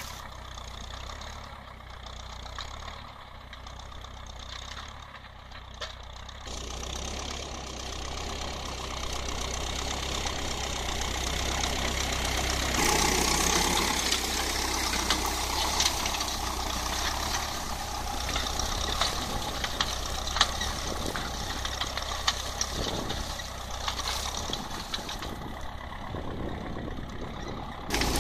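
Ferguson TEF-20 tractor's four-cylinder diesel engine running steadily under load while pulling a spring-tine tiller through stubble. It is heard from behind at first, then close up and much louder from about halfway through.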